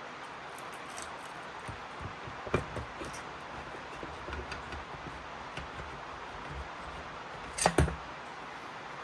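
Metal engine parts being handled as the cylinder is worked off a Polaris Sportsman 570 engine: a few light knocks and taps, then a louder pair of clunks near the end.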